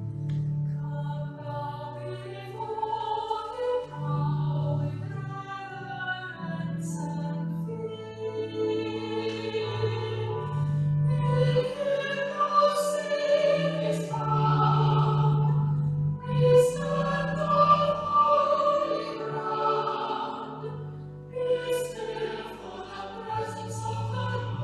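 A choir singing a slow hymn or anthem over held bass notes that change pitch step by step, the voices swelling louder in the middle.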